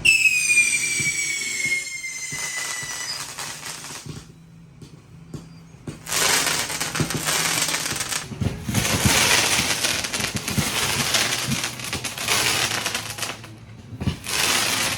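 Fireworks going off: a whistling firework's falling whistle for about three seconds at the start, then two long stretches of dense crackling, with a short thump near the end.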